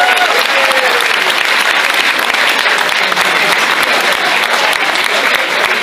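Audience applauding: steady clapping from many people.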